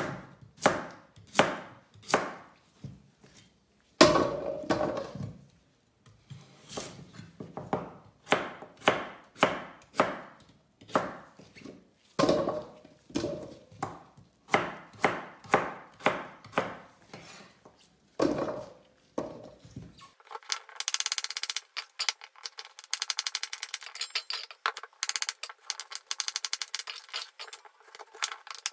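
Chef's knife chopping a radish on a wooden cutting board: sharp knocks about two a second as the blade cuts through and strikes the board. About two-thirds of the way through the sound turns into a rapid, thin clatter of many quick ticks.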